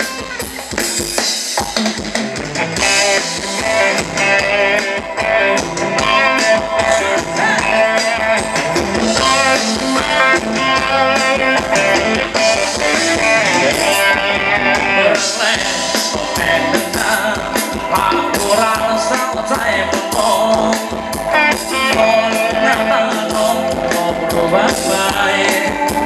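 Live band playing Thai ramwong dance music, with drum kit and guitar over a steady beat.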